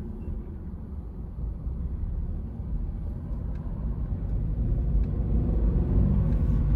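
Toyota GR86's 2.4-litre flat-four engine and road noise heard inside the cabin, a low rumble that grows steadily louder over the several seconds.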